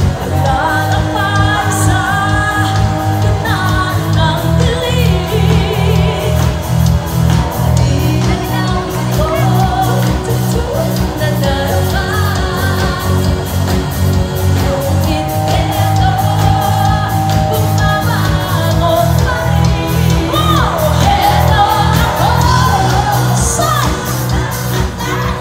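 Live band playing an amplified pop song: women singing lead over electric guitar, keyboards and a steady drum beat with a heavy low end.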